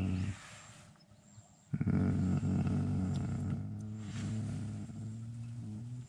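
A person's low voice making a drawn-out groan or growl: a short one at the start, then a long held one from about two seconds in that wavers slightly near the end.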